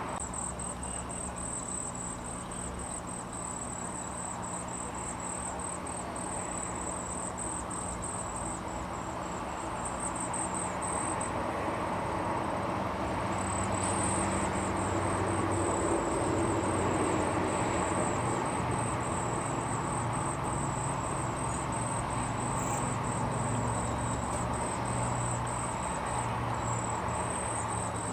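Insects, cricket-like, chirring in a steady high-pitched pulsing trill over a low steady hum that grows a little louder about ten seconds in.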